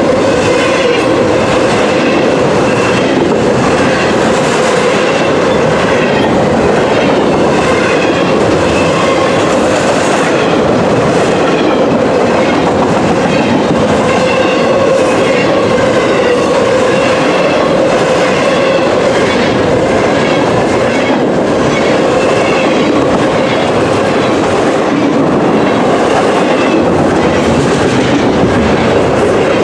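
Double-stack intermodal freight train's container well cars passing close by at speed: a loud, steady rumble of steel wheels on the rails with a regular clatter of wheels over the track.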